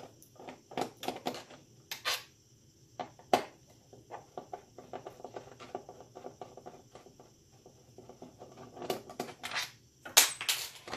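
Phillips screwdriver turning out the screws that hold a TV stand foot to the plastic back case: scattered clicks and scrapes, a quick run of small ticks in the middle, and a few louder knocks near the end as the foot is pulled loose.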